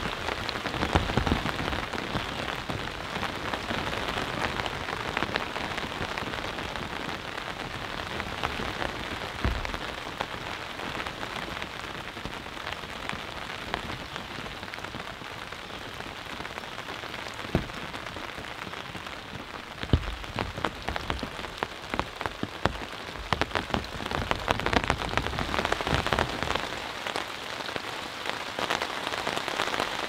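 Steady rain falling, with many single drops heard as sharp ticks and a few low thuds; it swells a little louder near the end.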